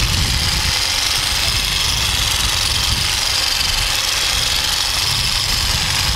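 Percussive massage gun running steadily, its motor buzzing while the head works on the sole of a foot.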